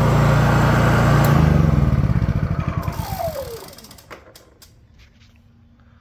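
Honda EU3000is inverter generator's single-cylinder engine running steadily, then shut off and spinning down to a stop over about two seconds with a falling whine. A few light clicks follow once it has stopped.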